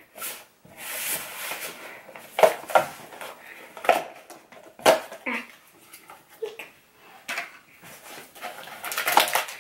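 Cardboard toy box being folded and handled on a wooden tabletop: scattered knocks and taps, about five sharper ones, with light rustling in between.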